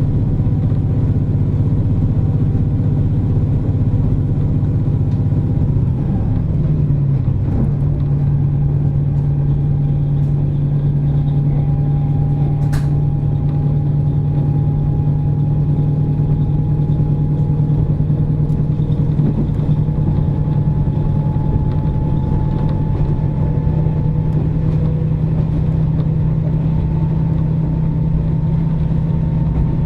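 KiHa 47 diesel railcar running between stations, heard from inside the car: a steady low diesel drone whose note shifts about six or seven seconds in, under a faint whine that slowly rises in pitch. A single sharp click comes a little before halfway.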